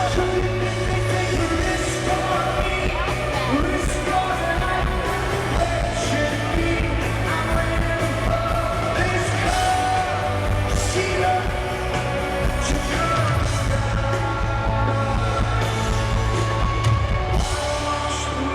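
Rock band playing live, with singing over guitar and a steady bass.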